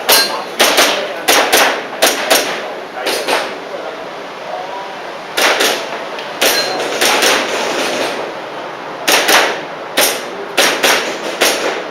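Airsoft pistol shots fired in quick strings, often as close pairs, with short pauses between groups.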